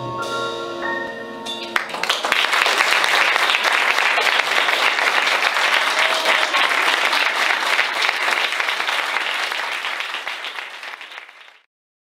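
The band's final chord on piano, electric bass and drums rings out, then about two seconds in an audience breaks into applause. The clapping is steady for about nine seconds, then fades and stops just before the end.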